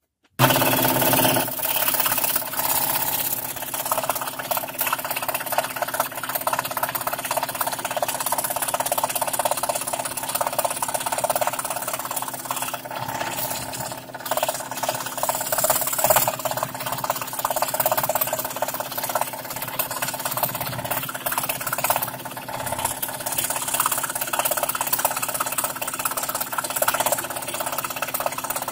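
Scroll saw running, its fine blade cutting intricate fretwork in paper-patterned plywood: a steady rapid chatter of blade strokes over a constant motor hum.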